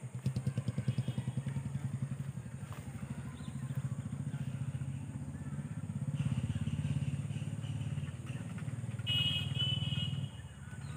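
Motorcycle engine running at low revs, a fast, even pulsing throughout, a little louder from about six seconds in.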